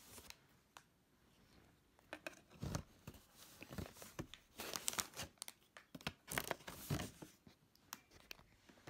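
Cardboard box being cut and torn open by hand: quiet at first, then short, scattered tearing, scraping and crinkling noises from about two and a half seconds in.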